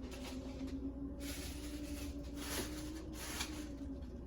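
A low steady hum with a few short, hissy rustling noises in the middle, like things being handled.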